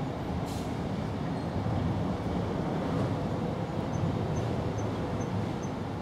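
Steady low rumble of distant traffic. A brief hiss comes about half a second in, and from about four seconds in there are faint high chirps about twice a second.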